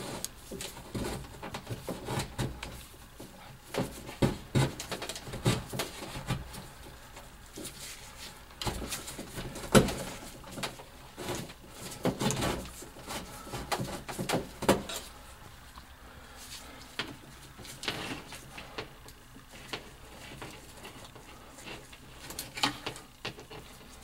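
Handling noise: irregular rustles, scrapes and light clicks of gloved hands pulling a float switch's thin low-voltage wires back through a hole in an air handler's sheet-metal cabinet. The sharpest clicks come about ten seconds in and again a few seconds later.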